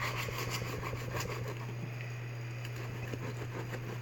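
Knife slicing through a cooked steak on a wooden cutting board: faint scraping and light knocks, most of them in the first second or two, over a steady low hum.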